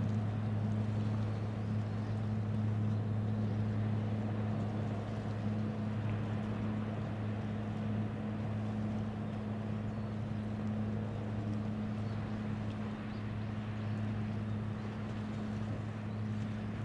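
Tank landing ship LST-4002 Shimokita's diesel engines running steadily under way. It is a low, even drone with a second tone at about twice its pitch, over a steady hiss.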